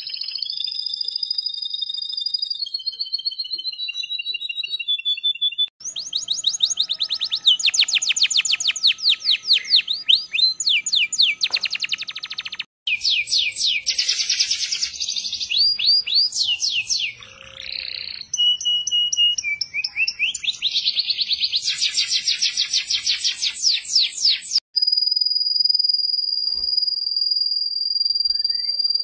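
Several male domestic canaries singing in turn: fast trills of rapidly repeated sweeping notes and rolling passages, in sections that change abruptly every several seconds. The song ends on one long, steady, high whistled note.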